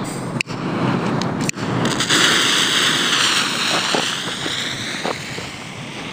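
Thor Hekla 120-gram firework fountain spraying with a loud, steady rushing hiss, with a few sharp cracks in the first two seconds and a couple more near the middle.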